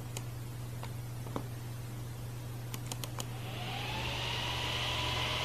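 A few mouse clicks, then, a little past halfway, the twin cooling fans of an MSI R7950 Twin Frozr graphics card spin up into a rising whir that keeps growing louder. The fans are ramping to 100% speed as a maximum-overclock profile is applied.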